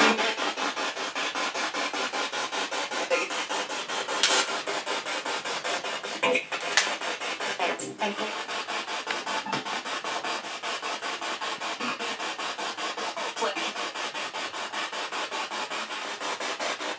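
Spirit box sweeping through radio stations: steady static chopped into rapid, even pulses several times a second, with a few brief louder crackles.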